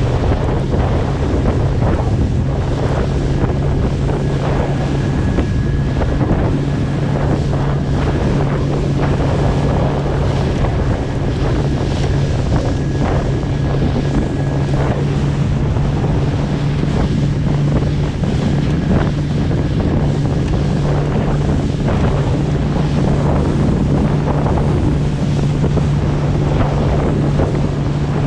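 A small fishing boat's engine drones steadily under way, its pitch shifting slightly about halfway through. Heavy wind buffets the microphone and waves splash against the hull in choppy sea.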